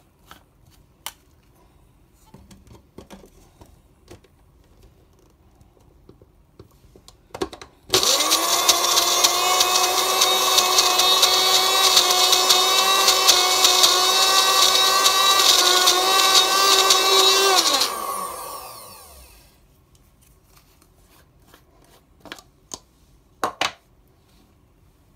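Small press-down electric grinder blending peanuts with milk: a few clicks as the jar is seated, then the motor starts suddenly and runs with a high whine for about ten seconds, winding down with a falling pitch when released. A couple of sharp knocks near the end as the jar is taken off the base.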